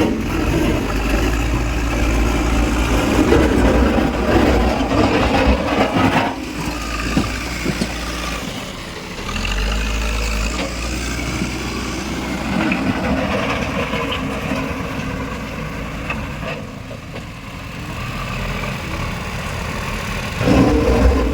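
JCB 4DX backhoe loader's diesel engine running under varying load as the machine works, rising and falling in level, easing off for a few seconds in the second half and picking up again near the end.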